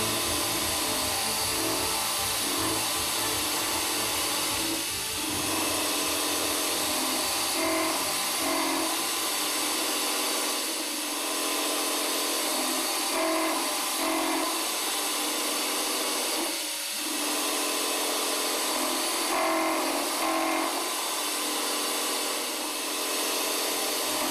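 Dry rough milling of S50C carbon steel by a Dijet high-feed indexable end-mill head (32 mm, three inserts) on a long 250 mm overhang, a steady cutting hiss. Background music plays over it.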